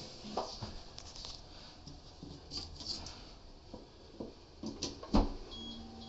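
Light clicks and knocks from handling the smart toilet's plug and fittings, with a sharper knock about five seconds in, after which a faint steady electronic tone with short high beeps starts as the newly plugged-in smart toilet powers up.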